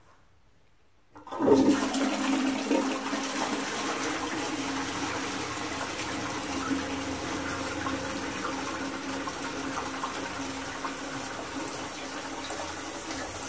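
Twyford's low-level cistern flushing into a Johnson Bros toilet pan: the water rushes in suddenly about a second in and keeps running steadily, swirling in the bowl. A steady tone runs under the rushing water, which eases off slightly toward the end.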